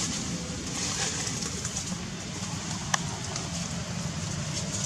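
Outdoor ambience: a steady low rumble with faint bird calls over it, and one sharp click about three seconds in.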